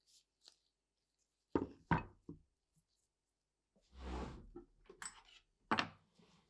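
Wooden machine-gun buttstock with its metal trigger group being handled and set down on a wooden workbench. There are a few sharp knocks about a second and a half in, a longer duller sound around four seconds in, and another knock near the end.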